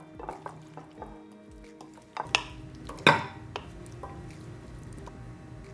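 A wooden spoon tossing chopped salad in a glass bowl, then knocking against glass as the salad is tipped and spooned into a smaller glass bowl, with a few sharp clacks between about two and three seconds in. Soft background music runs underneath.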